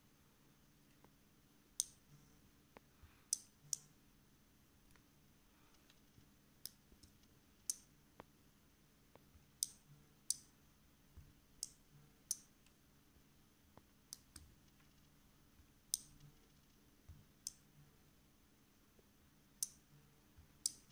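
The blue relays on a two-channel Wi-Fi smart relay module clicking as its channels are switched on and off from the phone app. There are about fourteen sharp clicks at uneven intervals, some in quick pairs, over a faint low hum.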